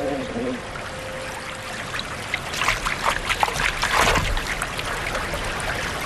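Rushing water of river falls and rapids, with a run of loud splashing about halfway through.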